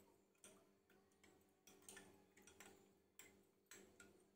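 Faint light clinks of a spoon against a small glass bowl as cornflour is stirred into water, about two or three irregular ticks a second.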